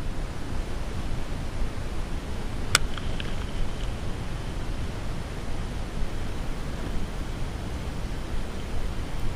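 Steady wind buffeting the microphone, a rough rushing noise heaviest in the low end, with one sharp click about three seconds in.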